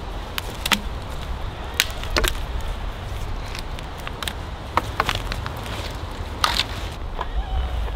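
Dry twigs snapping off a dead branch as it is handled and trimmed by hand: a dozen or so short, sharp cracks at irregular intervals over a low rumble.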